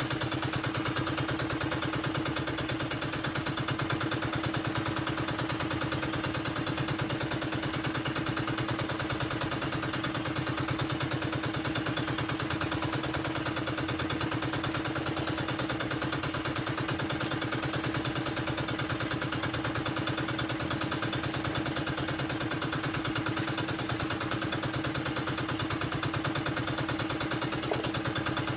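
Small engine running steadily at a constant speed, with an even, rapid beat and a steady hum that does not rise or fall.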